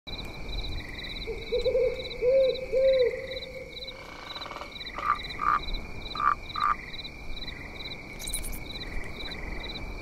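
Frogs croaking over a steady high trill of insects, with regular chirps about two or three a second and a few lower croaks in the first three seconds.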